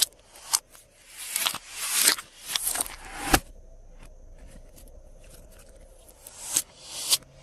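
Glossy slime being mixed by hand, making a run of sticky clicks and crackles. It goes quieter for about three seconds in the middle, and the clicks come back near the end.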